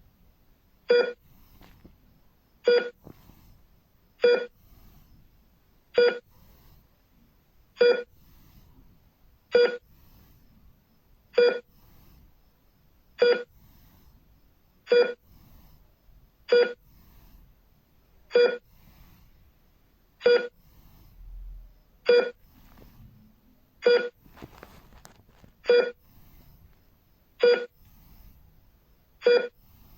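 Hospital heart-rate monitor beeping, one short, pitched beep per detected heartbeat, steady and even at roughly one beep every two seconds.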